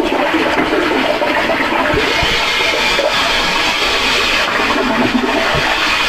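Steady, loud rushing noise with a water-like character.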